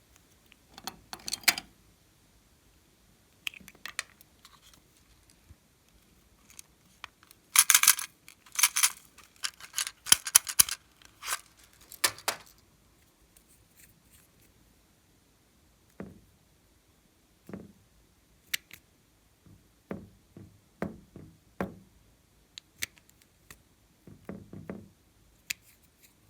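Clear slime being handled and mixed with added items by hand: scattered sticky crackles and pops. A dense burst of sharp crackling comes about a third of the way in, and softer, lower squishy pops follow near the end.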